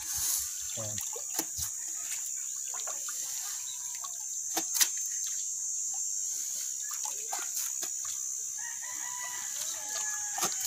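A rooster crowing near the end, over a steady high-pitched hiss, with scattered knocks and clicks throughout.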